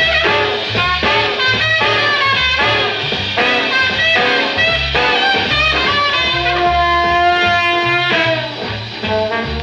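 A 1951 78 rpm shellac record playing a swing band: saxophones, trumpet and trombone over piano, bass and drums. Partway through, the horns hold a long chord.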